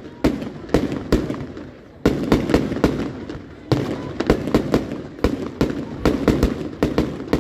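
Fireworks display: a rapid series of sharp bangs over a continuous rumbling crackle. A short lull comes about a second and a half in, then the bangs come thick and fast again.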